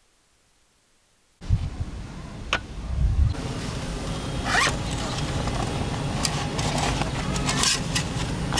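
A zipper being pulled, among scraping and rustling handling sounds. The sound cuts in abruptly about a second and a half in, after near silence.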